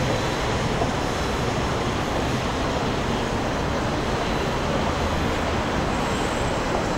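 Steady city din of road traffic and trains, an even rumble with no single event standing out.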